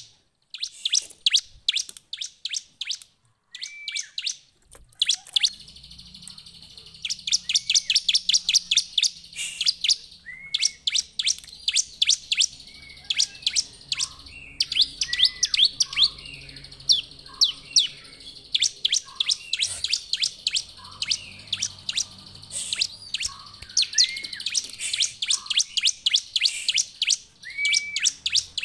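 Bar-winged prinia (ciblek) singing vigorously (gacor): rapid runs of sharp, high downward-sweeping chirps mixed with short lower whistled notes, with a brief pause about three to five seconds in. A faint low hum lies under the song from about five seconds on.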